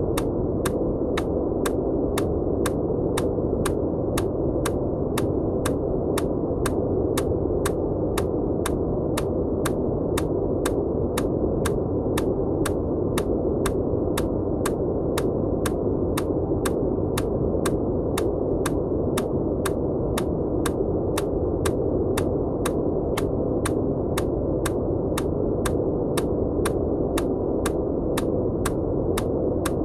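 Steady, dull white-noise hiss with the highs cut off, under a regular EMDR click of about two short ticks a second.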